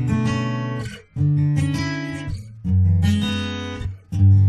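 Background music of an acoustic guitar strumming chords. A new chord is struck about every second and a half, and each one rings out and fades before the next.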